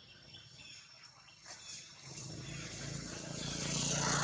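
A motor vehicle passing: its engine hum and road noise swell from about halfway through and are loudest near the end.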